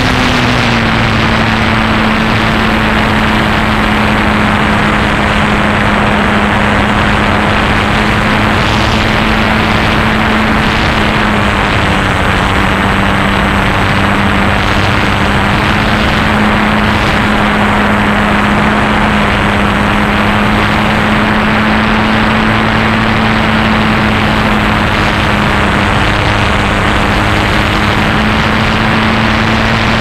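Propeller aircraft motor heard from on board, a steady drone over rushing wind noise. Its pitch steps down slightly just after the start and again about twelve seconds in.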